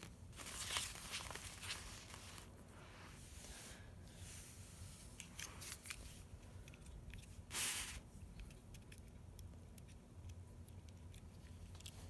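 Faint handling noise of small hand-held tools being worked at a table: scattered light clicks and rustles, with one short, louder scrape or tear about seven and a half seconds in.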